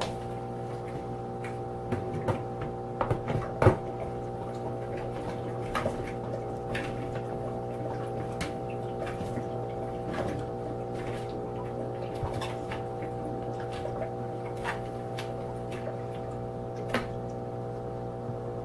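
Humidifier fan running with a steady hum, with scattered light clicks and taps on top, the loudest a little under four seconds in.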